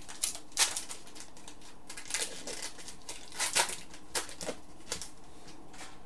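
Hockey trading cards being handled and flipped through by hand: a series of irregular, quick rustles and light card slaps.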